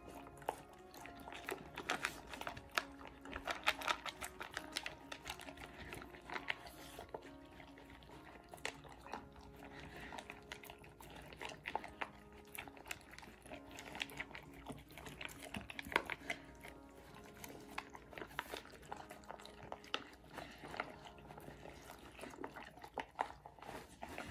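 Two puppies, a Border Collie and a German Shepherd, eating dry kibble from a plastic double bowl: irregular crunching and chewing, kibble clicking against the plastic, and some lapping.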